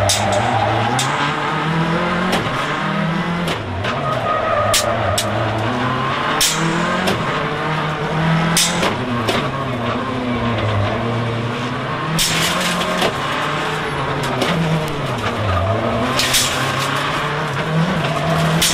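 Mitsubishi Lancer WRC05 rally car's turbocharged engine driven hard through bends, its pitch rising and falling again and again through gear changes and braking. Sharp cracks come every second or two.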